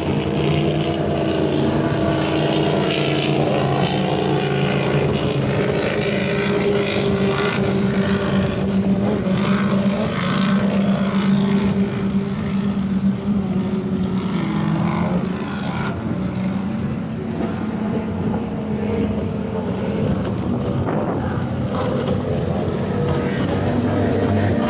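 Racing powerboats' outboard engines running flat out, their engine notes sliding up and down in pitch as the boats pass and turn, easing off a little about two-thirds of the way through.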